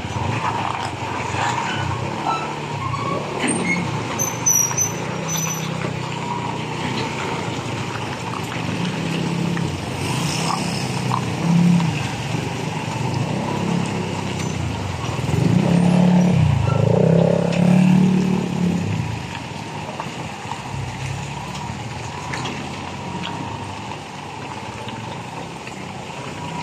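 Hino 700 tractor unit's diesel engine running while the truck and its container trailer are manoeuvred, the engine note rising and falling with the throttle and louder for a few seconds about two-thirds of the way through.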